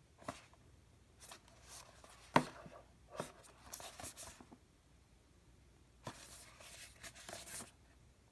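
Small cardboard retail box handled and turned in the hands: fingers tapping and rubbing against the carton in irregular clusters, with one sharp tap about two and a half seconds in.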